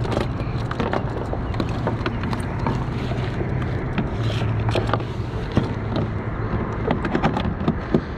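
Scattered clicks and knocks of handling in a plastic kayak as a freshly caught largemouth bass is held up and moved about, over a steady low hum.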